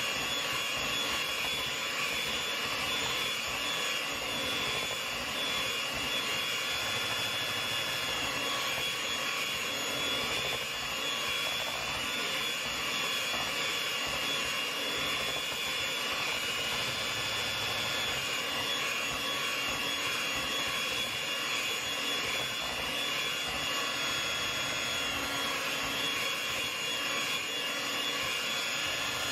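Electric hand mixer running steadily with a high whine, its beaters churning mashed sweet potato, butter and flour in a bowl.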